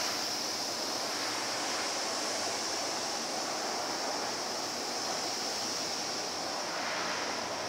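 Steady rushing machine noise with a constant high whine, from a CNC router and its equipment running while the machine stands still.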